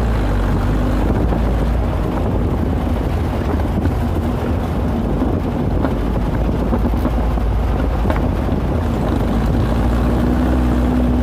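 VW Baja bug driving along a dirt trail, its engine running steadily under way, with wind buffeting the microphone. A low engine note grows a little stronger near the end.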